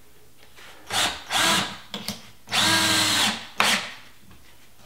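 Cordless drill driving a screw through a wooden board into the wall in start-stop trigger runs: two short runs, a steady run of about a second, then a brief blip near the end.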